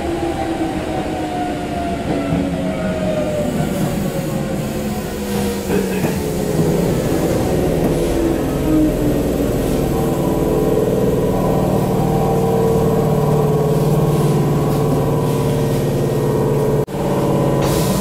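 Former Hankyu electric train heard from inside the car as it brakes into a station: the traction motor whine falls slowly in pitch, then gives way to a steady low hum. A single sharp click comes near the end.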